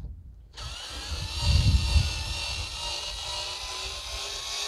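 Bauer 4-volt cordless screwdriver's small electric motor starting abruptly about half a second in and then running steadily with a whine that rises slightly in pitch, backing a screw out of a wooden deck board.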